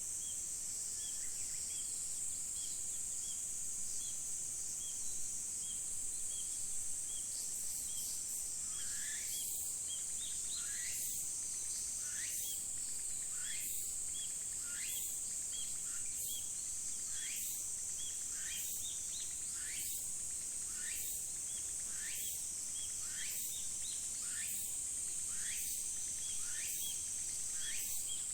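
Outdoor nature ambience of insects and birds: a steady high-pitched insect drone, with a soft chirp repeating about twice a second. About a third of the way in, a short rising call starts repeating about once a second.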